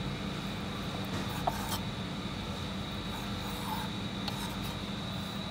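A few soft knocks of a kitchen knife meeting a wooden cutting board as cooked pork is sliced, the sharpest about a second and a half in, over a steady background hum.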